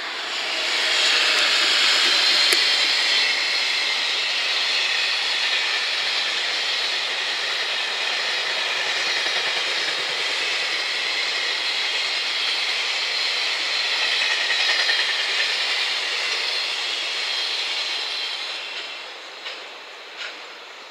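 An EF210 electric locomotive and its long train of container wagons passing: a steady rolling rush of steel wheels on rail with a hiss. It swells in the first couple of seconds as the locomotive comes by and fades near the end as the last wagons go, with a couple of sharp clacks as it dies away.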